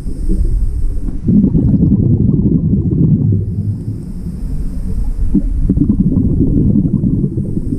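Loud, steady low rumbling noise, with a faint high hiss that comes and goes about every three to four seconds.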